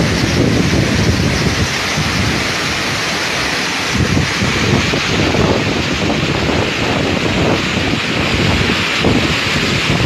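Waterfall in flood after heavy rain: a loud, steady rush of muddy water pouring over the falls and churning through the rapids below, with uneven low rumbling throughout.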